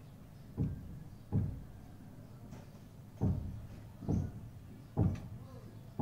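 A green parrot's beak knocking on a smartphone lying on a carpet: about six short, dull knocks, roughly one a second.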